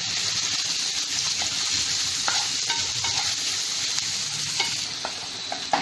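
Finely chopped onions sizzling in hot butter and oil in a non-stick frying pan, stirred with a spatula, with a few light clicks of the spatula against the pan.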